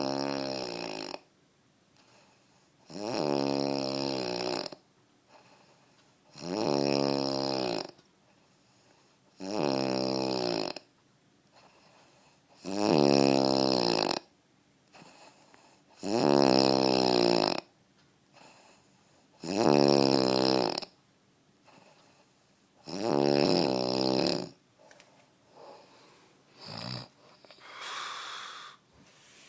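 A father snoring, eight long, pitched snores at a steady rhythm of about one every three seconds. Near the end the pattern breaks into a few short, quieter snorts and breaths.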